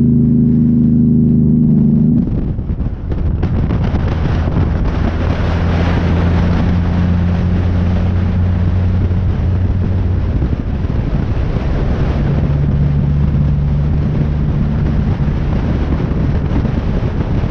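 Peterbilt dump truck's diesel engine running under way, a steady drone over road and wind noise. Its note drops about two seconds in and again about twelve seconds in.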